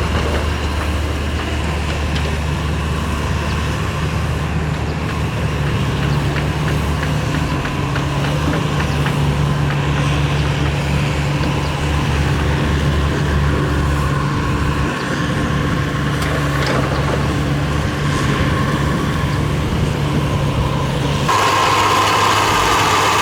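Diesel engine of heavy earthmoving machinery running steadily, with a low, even drone. The sound shifts abruptly near the end.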